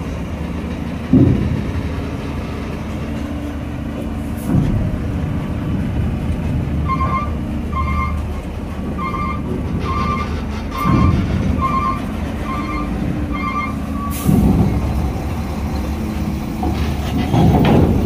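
Diesel engine of a FAW heavy tractor unit running steadily as it pulls a loaded lowbed trailer down a ferry's steel loading ramp. Heavy thuds come every few seconds, with one sharp metallic bang, as the wheels roll over the ramp plates. Midway, a vehicle's warning beeper sounds about nine times, evenly spaced.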